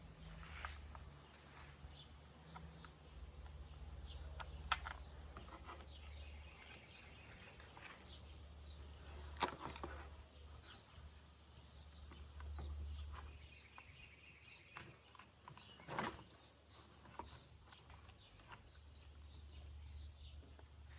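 Quiet outdoor background: a steady low rumble with a few sharp clicks, and three spells of high, rapidly pulsing chirps.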